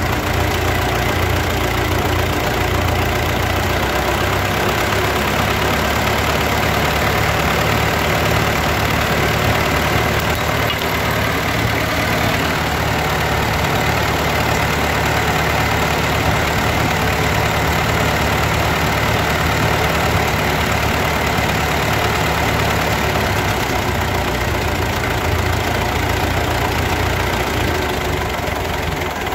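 Ford 8N tractor's four-cylinder flathead engine idling steadily at a fast idle of around 900 rpm while its carburetor idle and throttle-stop screws are adjusted.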